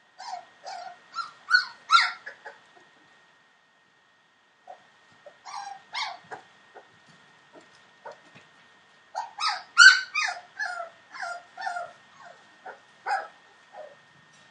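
Four-week-old Entlebucher Mountain Dog puppies whimpering and yipping: three flurries of short, high-pitched calls with gaps of quiet between them.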